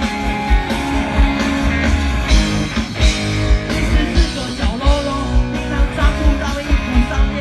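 Live rock band playing over a large outdoor PA: electric guitars, bass and drums with a steady kick-drum beat, and a voice singing over it.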